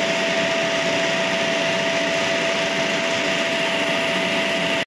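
Electric pump motor of a hydrostatic cylinder-test rig running steadily: a loud, even whir with one constant whine over it.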